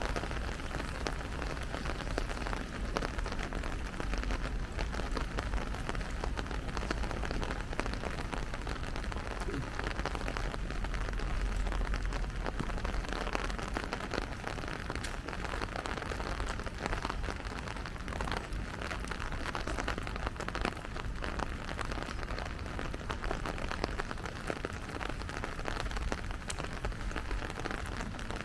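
Steady rain falling, with a dense patter of individual drops ticking over a continuous hiss and a steady low rumble underneath.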